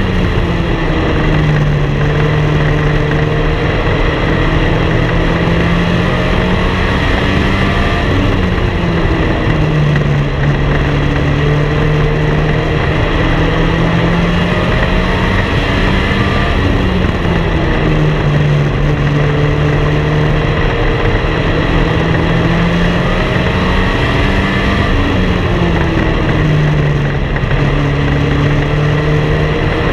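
Race car engine heard onboard at racing speed, its pitch climbing on the straights and dropping into the turns in a cycle that repeats about every seven to eight seconds.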